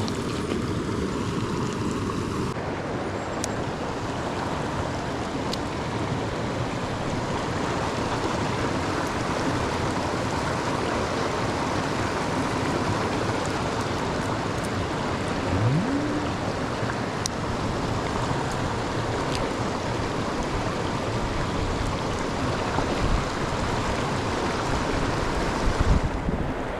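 Mountain stream water running steadily, an even rushing noise.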